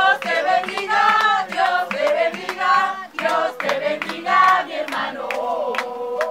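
A group of people singing together, with rhythmic hand clapping, to an acoustic guitar.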